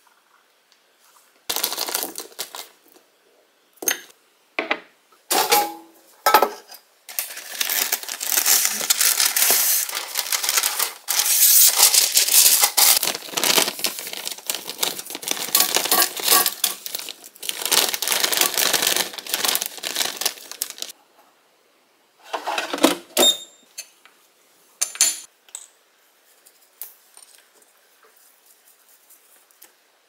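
A few sharp clicks and taps, then a long stretch of plastic packaging crinkling and rustling as frozen fried seaweed rolls (gimmari) are shaken out of their bag into an air fryer basket. A few more sharp clatters follow.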